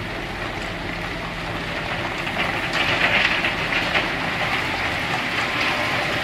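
Crushed stone sliding and rattling out of a raised dump semi-trailer body onto a pile, over the low steady run of the truck's diesel engine. The rattle swells about three seconds in.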